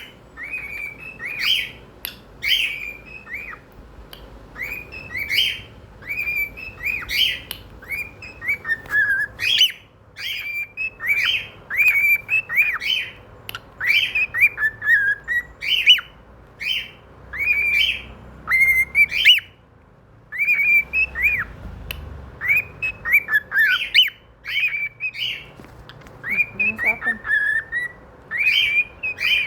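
Cockatiel singing: a long run of short whistled chirps, many sliding down in pitch, with a couple of brief pauses.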